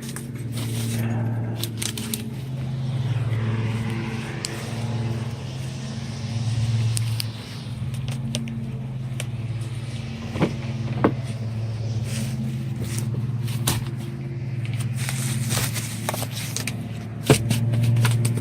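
A car engine idling: a steady low hum that swells and eases every second or two, with a few sharp clicks and crackles from the parts being handled.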